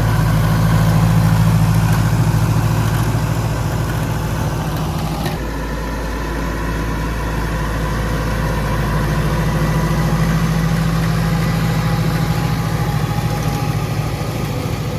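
Tractor engine running steadily while powering a round baler-wrapper, a continuous low hum. The sound shifts abruptly about five seconds in, then carries on as before.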